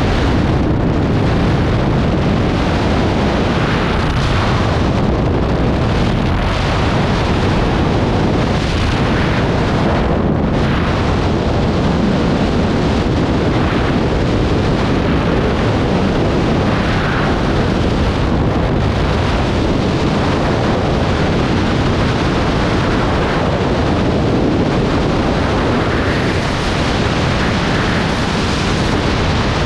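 Freefall wind rushing over a camera microphone: a loud, steady buffeting roar that does not let up.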